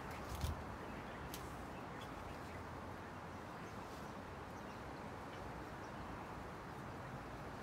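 Quiet garden ambience: a steady low background hiss with a few faint, short ticks.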